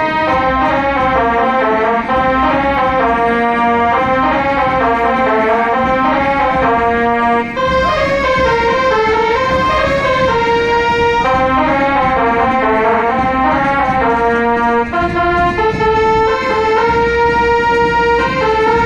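Brass band playing a marching tune: a melody of held notes, continuous throughout.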